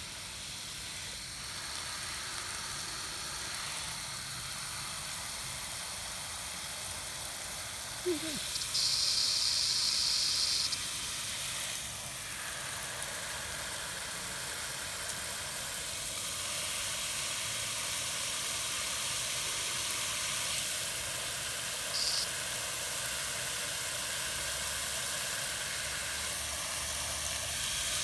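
Garden hose spray nozzle spraying water onto potting soil and plant leaves: a steady hiss. It turns sharper and higher for about two seconds about nine seconds in.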